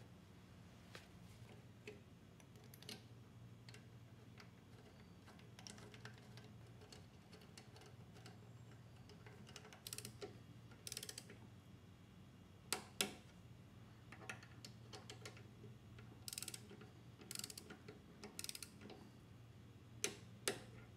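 Faint clicks of small metal parts being fitted on a Briggs & Stratton Quantum mower engine's carburetor linkage. Near the end come short bursts of ratchet clicking about a second apart as bolts are tightened to about 60 inch-pounds. A low steady hum runs underneath.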